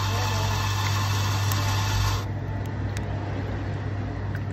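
Milk poured from a jug over ice in a plastic cup, the pour ending about two seconds in, over a steady low machine hum.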